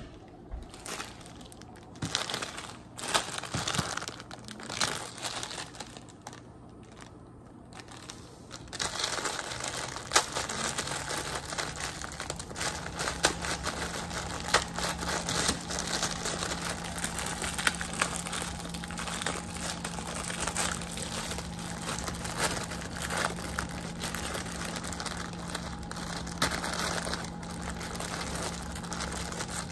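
Plastic instant-ramen wrapper crinkling and crackling as hands squeeze and break up the noodle block inside the package: a few scattered rustles at first, then steady dense crinkling from about a third of the way in. A steady low hum runs underneath from about the same point.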